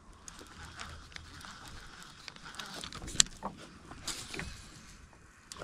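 Faint small clicks and rubbing from a spinning rod and reel being worked in a plastic kayak, irregular rather than rhythmic, with a couple of sharper clicks about three and four seconds in.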